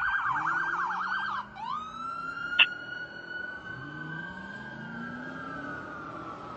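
Fire engine's electronic siren in a fast yelp, switching about a second and a half in to a wail that rises and then slowly falls. A diesel engine revs underneath, and there is one sharp brief blip about two and a half seconds in.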